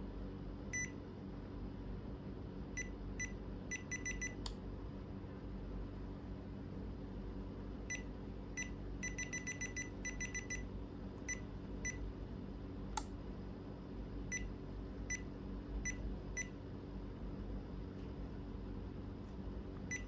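Touch-key beeps from a touch-screen floor-heating thermostat: a short high beep at each tap, sometimes single and sometimes in quick runs of several, as the set point is stepped. Two sharp clicks, a little after 4 s and near 13 s, over a steady low hum.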